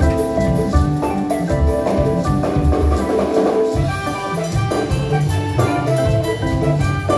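Live Frafra gospel band playing an upbeat song: a steady beat on drums and bass under bright, repeating melodic lines.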